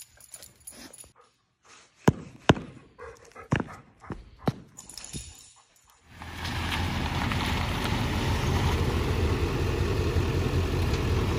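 A dog moving about a concrete shop floor, with scattered clicks and a few sharp knocks. About six seconds in, a steady low rumbling noise takes over.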